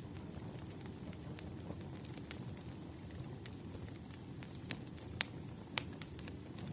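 Wood fire burning: a steady low rumble with scattered sharp crackles and pops, the loudest two a little after five and six seconds in.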